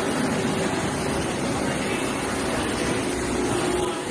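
Pressure washer running, its jet spraying water onto concrete steps: a steady hiss of water over the drone of the motor and pump.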